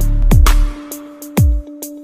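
Electronic music: deep bass kicks that drop in pitch, quick ticking hi-hats and a steady held synth tone.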